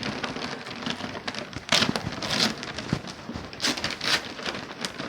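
Wrapping paper being torn and crinkled as a gift is unwrapped, in irregular rustling bursts, with two louder rips about two and four seconds in.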